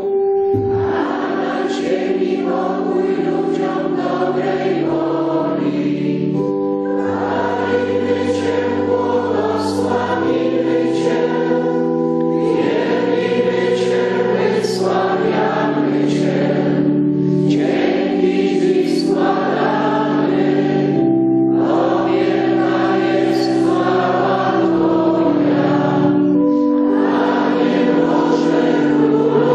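Choir and congregation singing a liturgical chant of the Mass in phrases, over sustained held accompanying notes, with the priests at the altar singing along.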